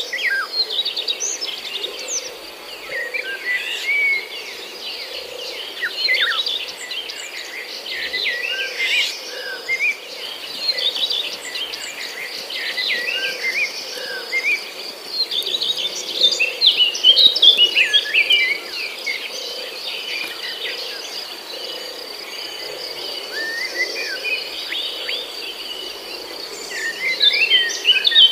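Many birds chirping and calling in quick, overlapping phrases over a steady, high insect drone.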